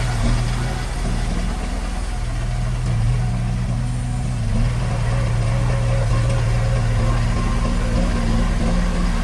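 Diesel engine of heavy construction machinery running steadily at low revs.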